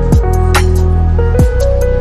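Electronic background music with a steady beat: deep kick drums, sustained bass notes and a held synth tone, with a sharp percussion hit about every second.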